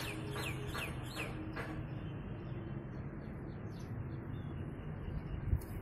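Bird chirping: a quick run of short chirps, each sliding downward in pitch, in the first second and a half. After that only steady low background noise remains.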